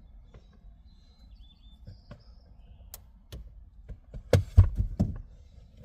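A few sharp clicks, then a cluster of knocks and thuds about four to five seconds in: hands and tools working at a car's interior trim and wiring plug.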